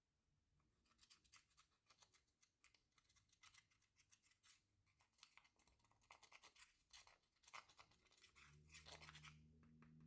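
Slime being squished and stretched by hand, giving faint irregular sticky clicks and crackles. A low steady hum comes in near the end.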